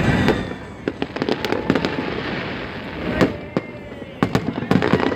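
Aerial fireworks bursting: irregular sharp bangs and crackling, with a quick cluster of reports near the end.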